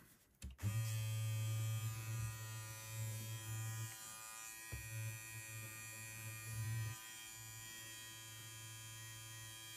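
A Rowenta cordless beard trimmer is switched on about half a second in and runs with a steady electric buzz, dipping briefly a few times.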